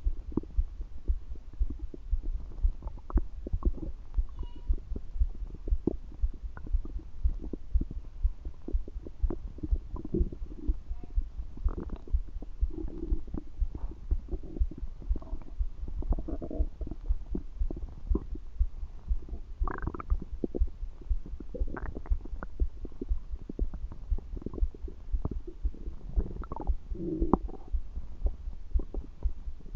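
Stomach gurgling and rumbling heard close up against a belly, with irregular gurgles over a regular low thudding, a little more than one thud a second.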